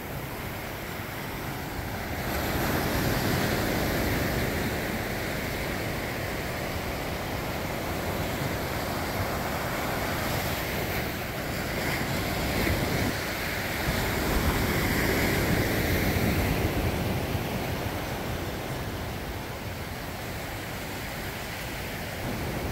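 Ocean surf breaking and washing up a sandy beach, a steady rush that swells louder about three seconds in and again around fifteen seconds in.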